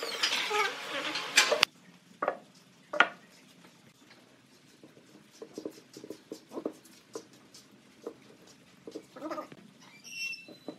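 Electric wood router spinning down, its whine falling in pitch, cut off abruptly about a second and a half in. Then light knocks and taps of wooden pieces being handled on a workbench, with a brief high squeak near the end.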